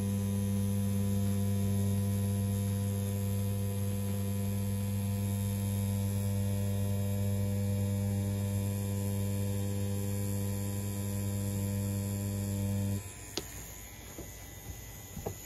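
CNC P6 rotary tattoo pen running at 7.5 volts with a round shader cartridge, a steady electric hum. It cuts off abruptly about thirteen seconds in, followed by a couple of faint clicks.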